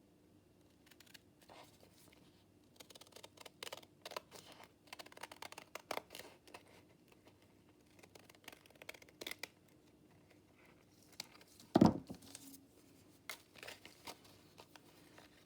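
Paper being handled and worked on a tabletop: a run of short, irregular crackles and rustles, with a single loud knock about twelve seconds in.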